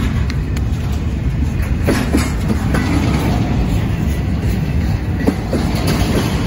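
Double-stack intermodal freight train's well cars rolling past close by: a steady low rumble of steel wheels on rail, with scattered sharp clicks and clacks from the wheels and trucks, a few near the start, a pair about two seconds in and another cluster after five seconds.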